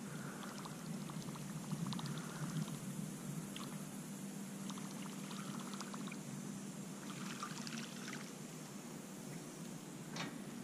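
Faint trickling and splashing of lake water, with scattered light clicks and small splashes throughout.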